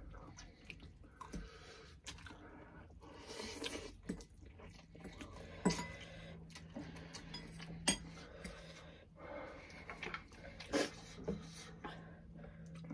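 Two people eating extra-spicy instant ramen: noodles slurped and chewed, forks clinking against ceramic bowls a few times (sharpest about six and eight seconds in), and heavy breathing from the heat. A faint steady hum sits underneath from about four seconds in.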